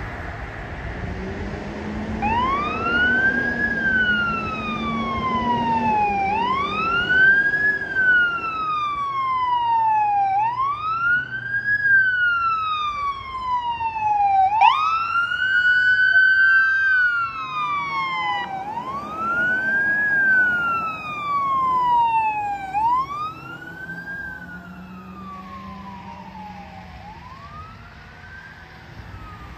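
Ambulance siren in wail mode. The tone rises quickly and then falls slowly, about every four seconds, with a short steady tone about halfway through. Engine noise from the passing vehicle runs under the siren, and the siren fades near the end as the ambulance pulls away.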